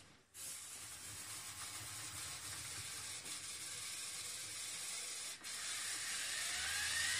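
LEGO EV3 motors and gear trains driving a robotic arm's joints, a steady hissing whir. The sound drops out briefly right at the start and again about five seconds in. Near the end a motor whine rises in pitch.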